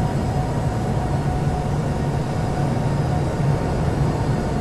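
Steady, even engine rumble: a constant low hum with a hiss above it that does not change.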